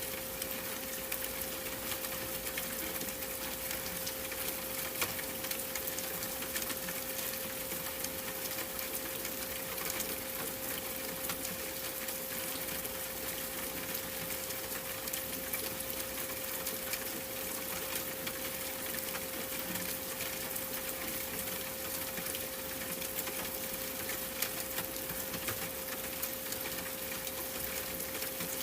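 A steady 528 Hz pure tone held unchanged over a continuous rain-like hiss dotted with many small ticks.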